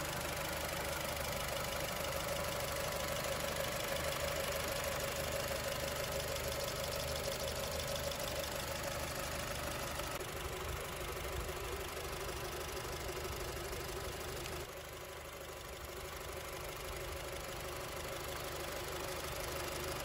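Honda Civic Type R FN2's 2.0-litre K20 i-VTEC four-cylinder engine idling steadily, heard up close over the open engine bay. It turns a little quieter about fifteen seconds in.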